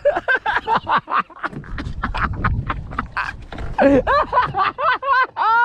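Excited human voices: quick choppy chatter with laughter, then from about four seconds in several long drawn-out exclamations that rise and fall in pitch.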